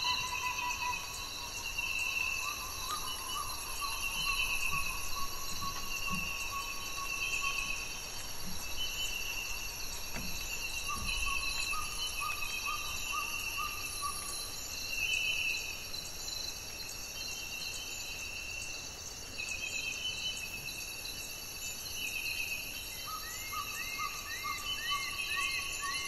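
Tropical forest ambience: a steady high insect chorus with birds calling over it, short trilled phrases repeated every second or two. Near the end one bird gives a quick run of hooked notes, about two a second.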